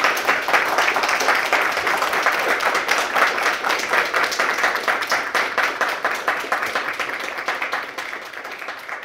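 Audience applauding: a dense run of many hands clapping, which slowly dies down toward the end.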